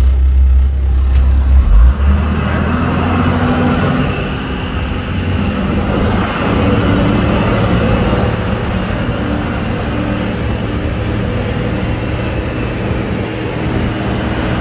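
Engine of an amphibious duck boat running as it drives, heard from aboard: a heavy low rumble for the first two seconds, then a steady engine note whose pitch shifts up and down in steps.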